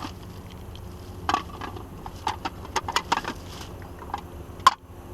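Hard plastic and metal junk in a dumpster of discarded electronics clattering and clicking as it is rummaged through. A scatter of knocks comes over a couple of seconds, then one sharp louder click near the end.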